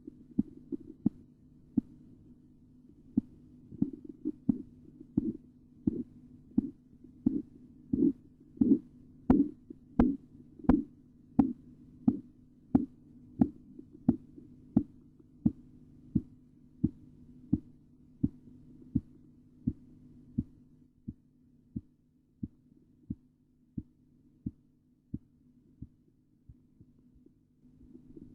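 Korotkoff sounds heard through a stethoscope over the arm, as a blood-pressure cuff lets down. They are regular taps, one per heartbeat at about 85 a minute, over a steady low hum. The taps start faint, grow louder and sharper to a peak about ten seconds in, then soften and fade over the second half.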